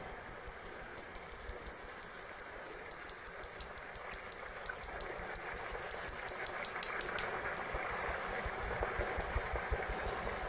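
Cake batter being mixed in a ceramic bowl: a steady scraping rush of the mixture, with rapid clicks of the utensil against the bowl for a few seconds in the middle, growing louder toward the end.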